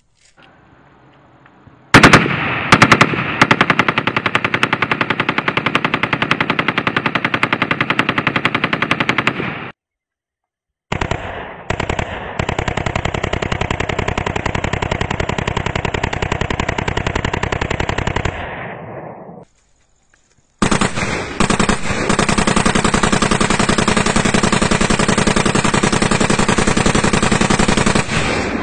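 7.62 mm Krinkov short-barrel rifle test-firing on full automatic: three long bursts of about eight seconds each, separated by short breaks, with a few separate shots opening the first two bursts.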